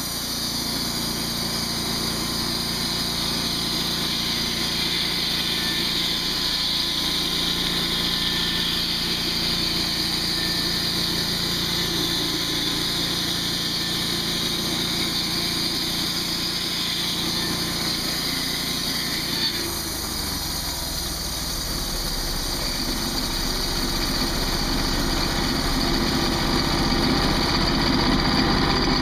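The engine of a manual push portable band sawmill running steadily while its band blade saws lengthwise through a red cedar log. The engine's note changes about two-thirds of the way through and grows slightly louder near the end.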